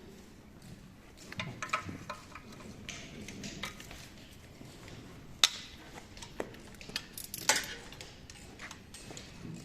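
Metal clinks and clicks of engine parts and hand tools being handled during a teardown, with one sharp clink about halfway through and a quick cluster of them near the end.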